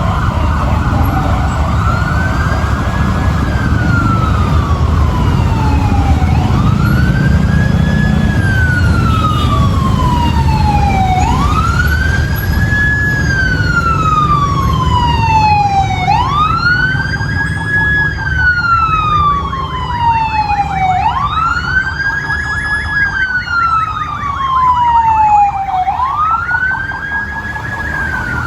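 Fire truck siren wailing, each cycle rising quickly then falling slowly, repeating about every five seconds. A second, higher siren joins about halfway through, over a low engine and road rumble.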